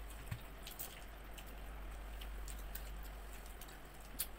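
Eating with the hands from a banana leaf: scattered small, wet clicks and smacks over a low, steady hum.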